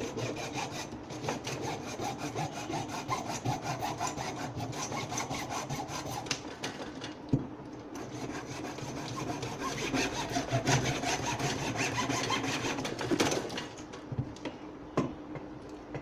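Sawing: a quick, rasping run of strokes that stops about thirteen seconds in, followed by a few light knocks.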